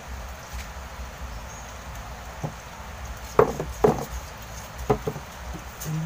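A handful of sharp wooden knocks and taps from hands working a knife and stick on a wooden table, the two loudest close together a little past the middle and two quicker ones near the end.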